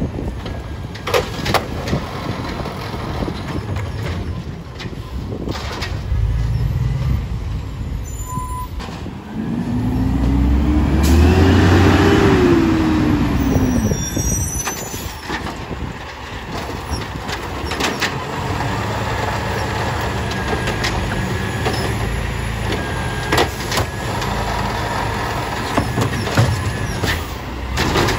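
Automated side-loader garbage truck working: the diesel engine runs with sharp knocks and clanks from the lifting arm and cart, and the air brakes hiss. About ten seconds in, the engine revs up and falls back over a few seconds.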